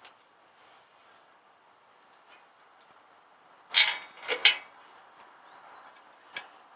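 Three sharp metal clanks in quick succession about four seconds in, with a lighter knock near the end, as the muffler and its bolt hardware are handled and set in place on the tractor's exhaust. Faint bird chirps sound in the background.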